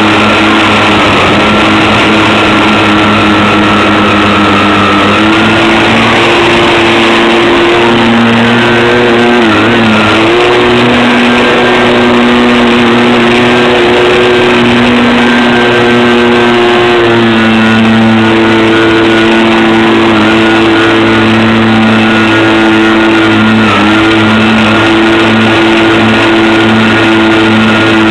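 Electric motors of a twin-engine RC plane running in flight, a steady whine whose pitch holds for several seconds, then steps up or down with throttle changes, with brief dips about ten seconds in and near the end.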